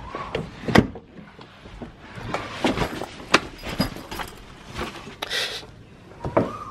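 A Mini car door being opened and a bag set down inside: a series of sharp clicks and knocks from the handle, door and seat, with a short rustle a little after five seconds.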